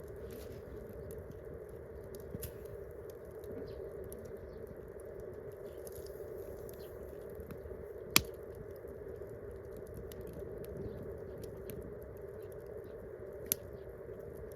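Wood campfire crackling with many small snaps scattered throughout, and two much louder sharp pops, one about halfway through and one near the end.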